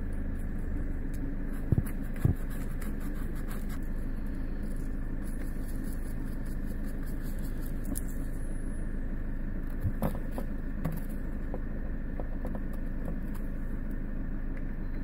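Steady low machine-like hum, with a few light knocks and scrapes as soil is cleaned off the base of a cep (porcini) with a knife and a brush.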